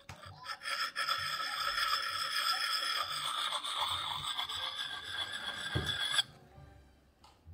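Lansky puck sharpening stone ground along the edge of an old steel hatchet head, likely on the coarse side of the puck. It makes a steady scraping with a ringing, singing note from the steel head, and stops suddenly about six seconds in.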